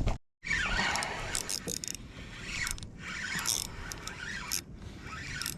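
Fishing reel squealing and ratcheting as a hooked fish pulls hard against it.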